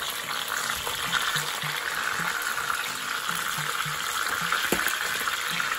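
Jack fish steaks frying in hot oil in a pan: a steady sizzle, with one light knock about three-quarters of the way through.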